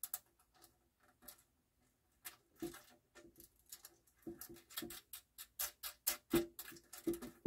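Small irregular clicks and taps of a screw, washer and nut being fitted by hand through an aluminum hinge tab on a clear plastic turntable dust cover. The clicks are sparse at first and come quickly one after another in the second half.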